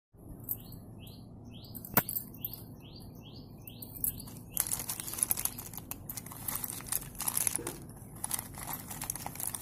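A small bird chirping over and over, about two short rising chirps a second, with one sharp click about two seconds in. From about halfway, a hand stirs a plastic basket full of slate pencils, and the sticks clatter and scrape against each other and the basket.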